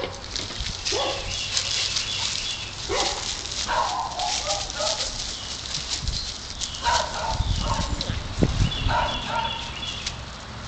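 A dog barking in short, high yips, about five spread a second or two apart.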